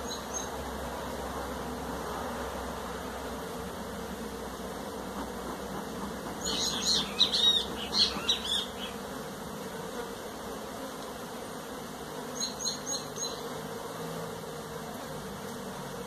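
Many honeybees buzzing in a steady hum as they fly around their broken-open nest. About six and a half seconds in comes a cluster of sharp, high squeaky chirps, the loudest sound here, and around twelve seconds in a quick row of four more.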